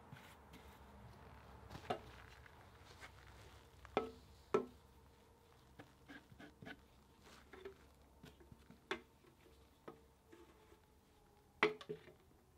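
Faint brushing as a paintbrush spreads coating over wooden floor rounds, with a few sharp clinks and knocks from the brush and the metal paint can, the loudest about four and a half seconds in and near the end.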